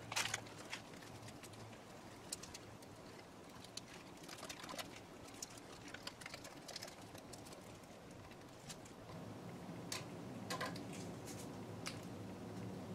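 Faint, scattered clicks and crinkles of masking tape being handled and pressed into place while masking parts for painting, with a faint low hum coming in about nine seconds in.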